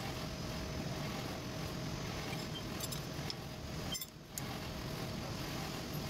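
Steady hum of workshop machinery running, with a few light metallic clicks about three and four seconds in as a cutter is handled and fitted in the drilling machine's spindle.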